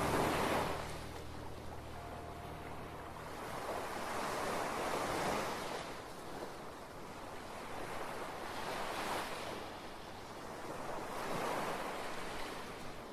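Sea waves breaking and washing up a beach, the rush swelling and fading every few seconds.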